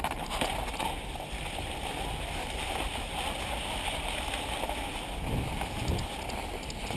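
Cross-country skis sliding over snow: a steady hiss, with a sharp click at the start.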